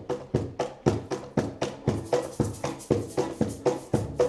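Kitchen band striking up the instrumental intro of a song: a steady beat of percussion strikes about four a second over pitched bass notes, starting suddenly.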